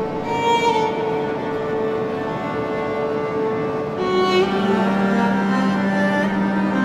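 Background music of slow bowed strings holding long notes; a low sustained string note comes in about four seconds in.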